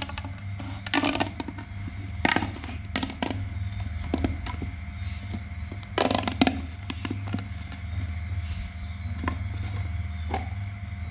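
Hands working small craft materials: intermittent crinkling, scraping and clicks, loudest about six seconds in, over a steady low hum.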